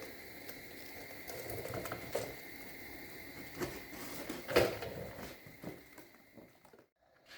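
Scattered light clicks, rustles and knocks of the parts of a flat-pack steel welding table being unpacked and handled, with a louder knock about four and a half seconds in.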